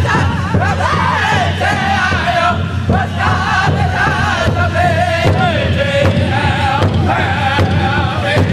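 Powwow drum group: several men singing together in high, wavering voices over a steady beat on a large shared powwow drum.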